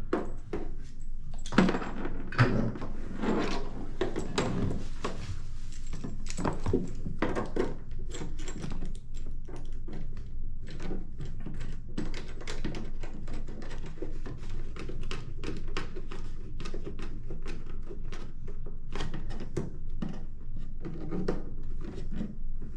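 Cables and connectors being handled and plugged in: a run of small clicks, knocks and rattles, with a couple of louder thunks about two seconds in.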